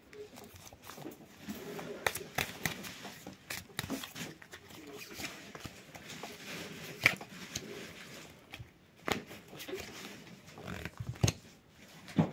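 Tarot cards being shuffled and handled: papery rustling with irregular sharp clicks and taps as cards slide and are laid down.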